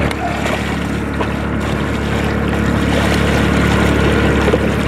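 Hooked catfish thrashing and splashing at the water's surface beside the boat as it is reeled in, over a steady low motor hum.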